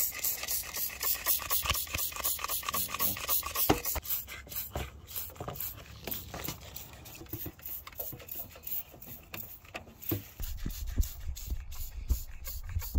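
Hand trigger spray bottle of degreaser being pumped in rapid, repeated strokes, each a short hiss of spray. A low rumble joins about ten seconds in.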